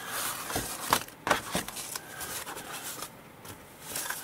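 Thin foam packing sheet rustling as it is wrapped back around a plastic model-kit sprue, with several light clicks and taps of the plastic in the first couple of seconds.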